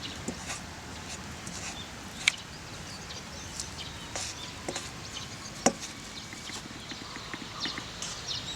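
Scattered sharp clicks and light taps over a steady low hiss, with two louder snaps, about two seconds in and again past the middle.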